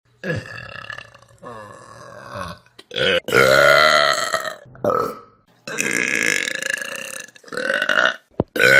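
A string of loud human burps, one after another, several long and drawn out with a wavering pitch. The longest and loudest comes about three seconds in.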